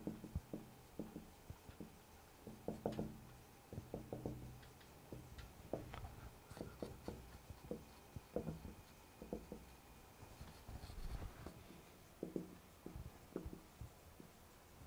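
Marker writing on a whiteboard: a faint, irregular run of short strokes and taps as words are written out letter by letter.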